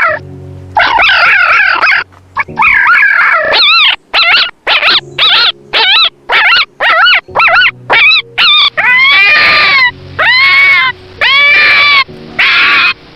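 Repeated high-pitched animal cries: short, quick calls about two a second at first, then from about two-thirds through longer calls that rise and fall in pitch, over faint background music.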